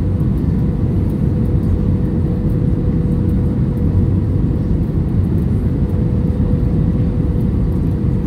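Steady cabin noise of an airliner on final approach, flaps extended: a low rumble of engines and rushing air with a thin steady tone through it.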